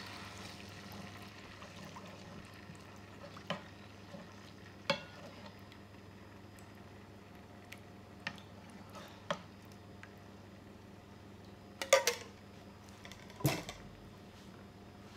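Metal spoon stirring coconut milk in a non-stick frying pan. A faint sizzle dies away in the first second. The spoon clicks against the pan now and then, and there are two louder clinks of metal on the pan near the end.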